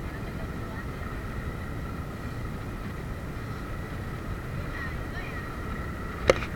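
Small boat's engine running steadily under way: a low rumble with a faint steady whine above it. A sharp click near the end.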